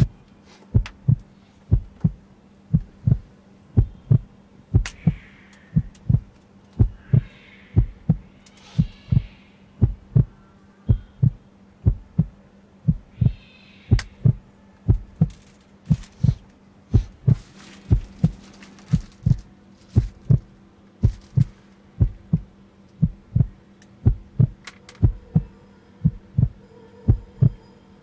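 Heartbeat sound effect: paired low thumps repeating evenly about once a second over a steady low hum. Faint higher droning tones join about two-thirds of the way through.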